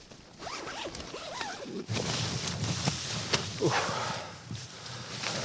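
A zipper pulled in several sweeping strokes, with nylon fabric rustling. It gets louder about two seconds in.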